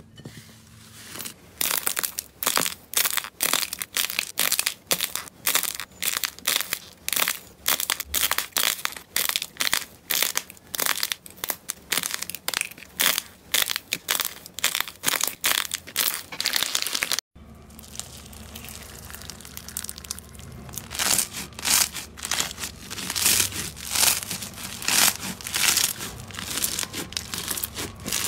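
Close-miked crunching and crackling of slime and crumbling dried clay squeezed and crushed by hand, a rapid run of sharp crackles that stops abruptly about two-thirds through and then starts again.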